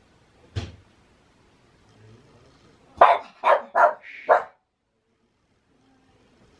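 Pet dog barking four times in quick succession about three seconds in, after one sharp sound about half a second in.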